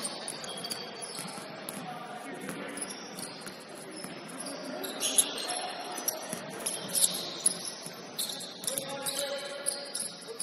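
Basketball game sounds: the ball bouncing on a wooden court and sneakers squeaking in short high squeals as players cut and stop, with players' voices faintly in the mix.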